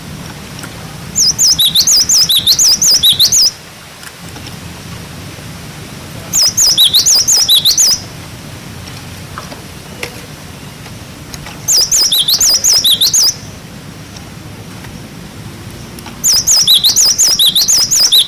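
Cinereous tit (gelatik batu) singing its 'wucit wucit' song. Four bouts of rapidly repeated high notes, each one to two seconds long and about five seconds apart, over a steady low hum.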